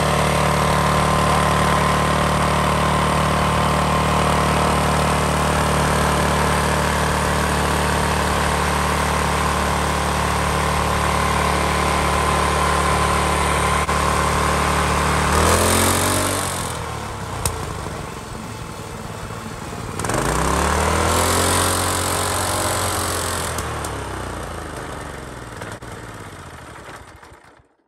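Lifan 168F single-cylinder 200cc four-stroke engine running at a steady speed, its governor disconnected and the speed set by hand through a wire to the governor arm. About fifteen seconds in the revs drop and it slows to a low speed, picks up again about twenty seconds in, then slows and dies away near the end.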